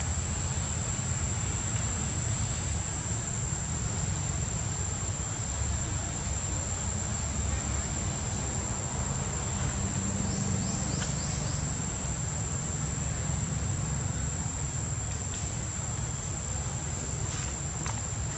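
Insects droning outdoors: one constant high-pitched buzz that holds steady throughout, over a low, steady rumble.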